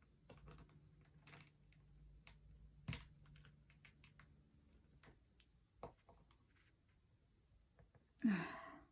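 Small laser-cut plywood kit pieces clicking and tapping as they are handled and pressed together by hand, with a brief loud sigh near the end.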